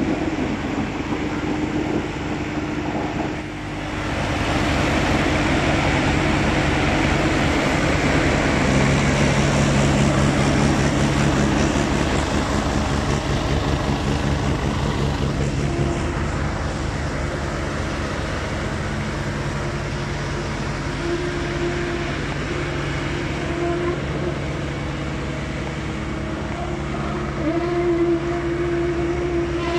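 Diesel engine of a concrete mixer pump running steadily under load, dipping briefly about three seconds in, with its tone shifting a few times.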